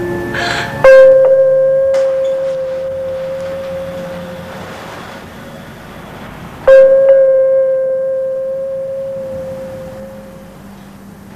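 A bell-like chime struck twice, about six seconds apart, each single note ringing out and fading slowly.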